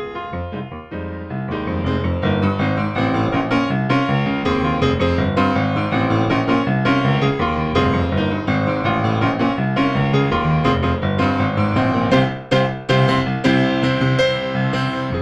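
Instrumental keyboard postlude closing a church service: a busy stream of quick notes over held bass tones.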